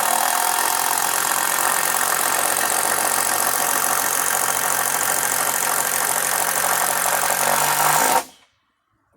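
Electric power drill motor running steadily at high speed for about eight seconds, then cutting off abruptly.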